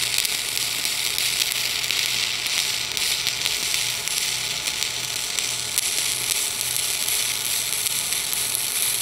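Stick-welding arc from a 309 stainless electrode laying a horizontal fillet weld that joins stainless steel to A36 carbon steel: a steady crackling hiss that runs without a break.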